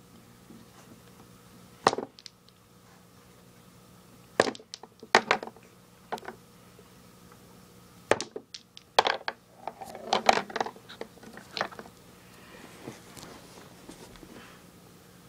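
Balls on a mini tabletop pool table clicking in a series of sharp clicks: the cue striking the cue ball and the balls knocking into each other and the cushions, with a quick flurry of clicks about ten seconds in. Near the end there is soft rustling as the cue ball is set back on the felt by hand.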